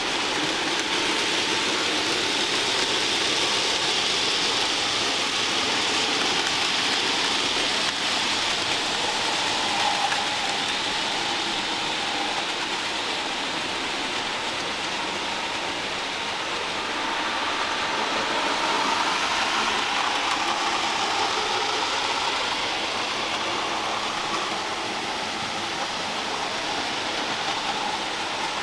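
Steady whirring and rolling noise of model trains running on a large model railway layout, with no single event standing out.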